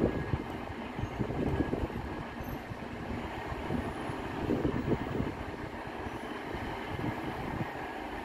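Class 150 Sprinter diesel multiple unit's Cummins diesel engines running at the platform, a low uneven rumble that swells a little about a second in and again near the middle.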